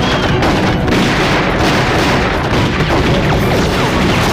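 Dense battle sound: continuous rifle and pistol gunfire mixed with explosion booms, and a blast near the end.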